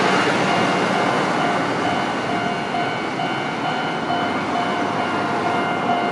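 Street traffic noise with a short electronic beep repeating about twice a second over it.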